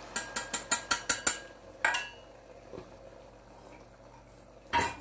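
A wire whisk knocking against the rim of a glass mixing bowl: a quick run of about seven sharp clinks in the first second and a half, one more clink near two seconds, then a single knock near the end.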